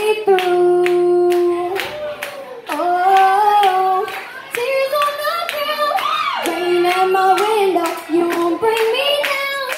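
A young girl singing a pop ballad into a microphone, holding and bending long notes, with a steady beat of sharp claps behind her voice.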